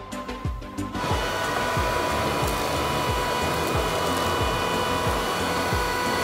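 Vacuum cleaner motor switching on about a second in and running steadily with a high whine, over background music with a steady beat.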